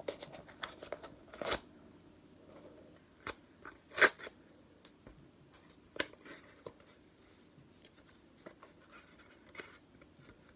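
Paper and cardboard rustling and crackling as a card-backed envelope is opened by hand and tape is pulled off it, in short irregular bursts, the loudest crackle about four seconds in.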